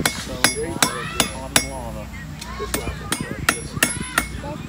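Blacksmith's hand hammer striking hot metal on an anvil while forging a trivet: a run of sharp blows about three a second, a short pause about two seconds in, then another run of blows.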